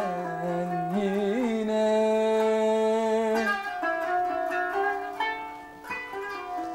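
Kanun, the Turkish plucked zither, played slowly in a Turkish art-music song. A man's voice holds one long wavering sung note over it for about the first three and a half seconds, then the kanun plays plucked notes alone.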